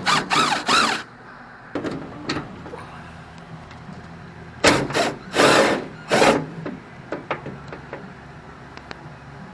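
A car's exterior door handle being worked loose and slid out of the door: short bursts of scraping and rattling of metal and plastic, with sharp clicks, in a cluster at the start and again around five to six seconds in.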